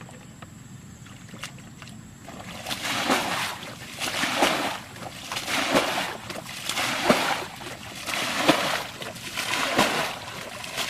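Muddy ditch water being bailed by hand with a plastic bucket: after a quiet couple of seconds come repeated scoop-and-fling splashes, about one every second and a half.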